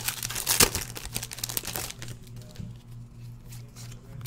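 Foil wrapper of a trading-card pack crinkling and tearing open for about two seconds. It is followed by quieter clicks of the cards being handled and flipped.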